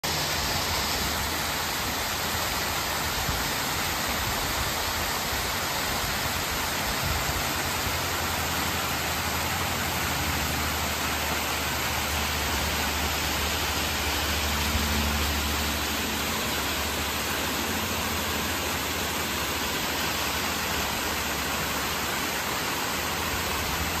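Stream cascading over rock ledges in a small woodland waterfall, a steady rushing of water running high after a rainstorm. A low rumble swells briefly around the middle.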